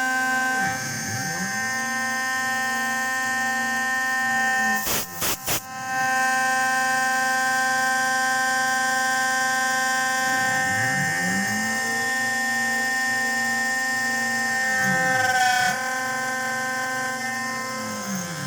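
Homemade CNC milling machine running: a steady high motor whine, with a lower whine that rises and falls in pitch several times as the stepper-driven axes speed up and slow down. The sound breaks off briefly three times about five seconds in.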